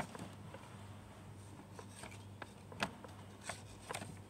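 Sheet of drawing paper handled close to the microphone: faint rubbing with a few short, sharp crinkles over the second half.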